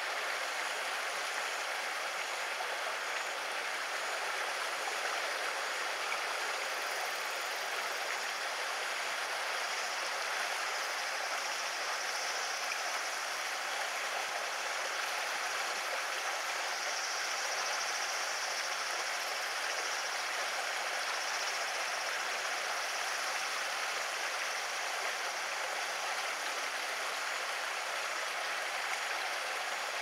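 Steady rush of running water: an even hiss with no distinct events.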